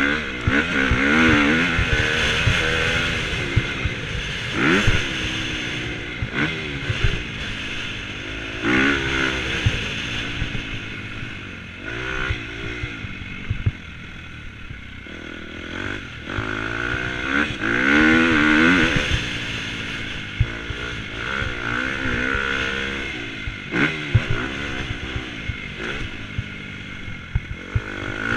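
Dirt bike engine under hard riding, its revs climbing and dropping every few seconds as the rider accelerates, shifts and backs off for turns. Wind buffets the microphone, and the bike knocks and clatters over the rough track.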